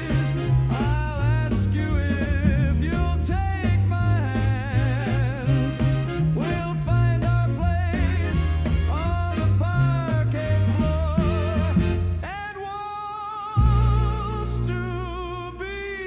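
Swing-style dance band music without lyrics: a wavering, vibrato lead melody over a bouncing bass line and steady beat. About twelve seconds in the beat drops away briefly, then the music comes back with long held notes.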